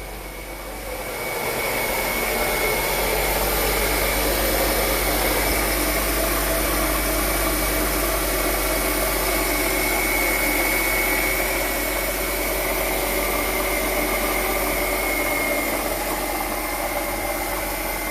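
Mercedes ML350's 3.5-litre V6 idling steadily with the hood open, its serpentine belt and freshly fitted alternator running, with a faint steady high whine over the engine noise.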